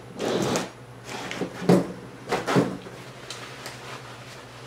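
Handling noises as a hand mirror is fetched and picked up: a short rustle, then two knocks about a second apart.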